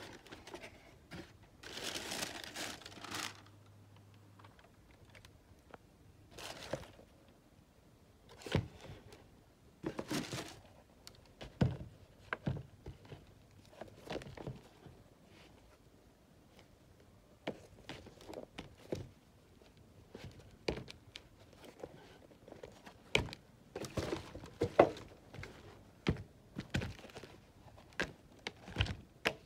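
Handling noises from a sneaker unboxing. A cardboard shoebox is opened, with a longer crinkling rustle near the start, then scattered taps, rustles and light knocks as the sneakers are handled and set down.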